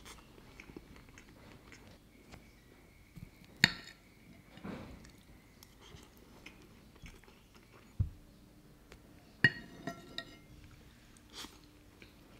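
A few sparse clinks of tableware on a ceramic plate, ringing briefly; the sharpest come about four seconds and about nine and a half seconds in. A dull thump comes about eight seconds in.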